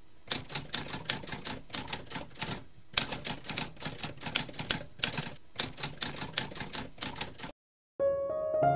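Typewriter keys clacking in a rapid run of keystrokes, several a second, with a brief pause a little under three seconds in. The clacking stops shortly before the end, and soft piano music begins.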